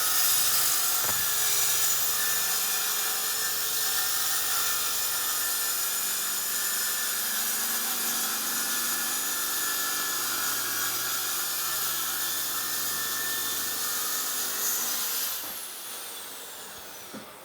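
Track saw running and cutting through a sheet panel with a steady, loud whine, on a cut taken in two passes to keep the load on the saw down. About fifteen seconds in the cut ends and the motor is switched off, its whine falling in pitch as the blade spins down.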